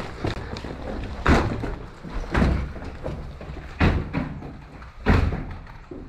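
Slow, heavy footsteps over rubble and concrete as an airsoft player steps carefully into a derelict building: four separate thuds about a second or so apart over a low rumble.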